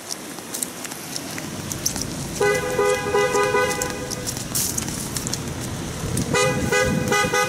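Car horn honking in two series of short, rapid toots, one about two and a half seconds in and another near the end, over steady street noise.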